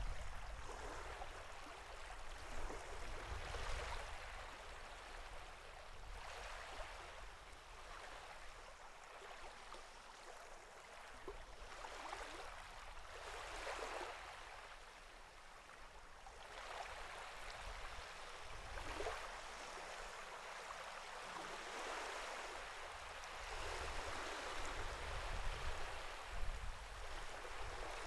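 Sea water lapping and splashing in small waves, swelling and fading every few seconds, over a low rumble.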